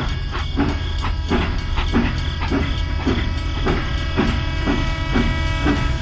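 Steam-train chugging sound of a toy locomotive: regular chuffs about three a second over a steady hum.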